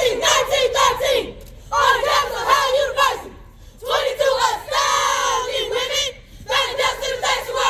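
A group of women shouting a chant in unison, in about four short phrases with brief pauses between them.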